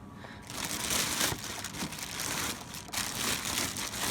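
Packaging being handled during an unboxing: a continuous crinkling and crackling of plastic wrap and cardboard, starting about half a second in.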